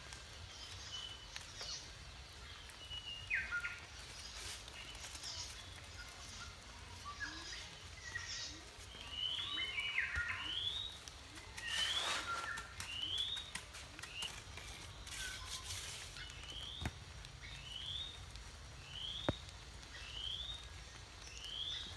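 Birds calling, one repeating a short rising chirp about once a second through the second half. Scrapes and a couple of sharp knocks come from blocks being set into wet mortar on a wall.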